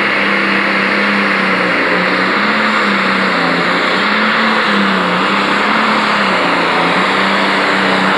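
International 3688 Pro Stock pulling tractor's turbocharged diesel engine running loud and steady at full throttle as it drags the weight sled down the track, its pitch wavering slightly under load.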